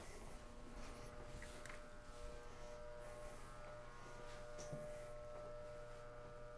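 Faint steady electrical hum of equipment, made of several held tones, with more tones and a low hum joining about two seconds in. Soft footsteps can be heard under it.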